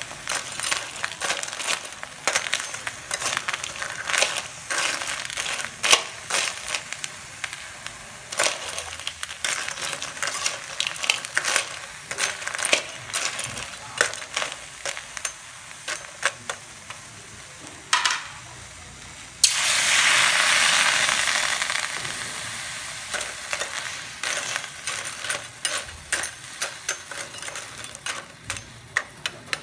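Crab claws stir-fried in a steel wok: the hard shells clatter and scrape against the metal as a perforated steel skimmer turns them, over a frying sizzle. About two-thirds of the way through, a sudden loud sizzle breaks out and fades over a few seconds.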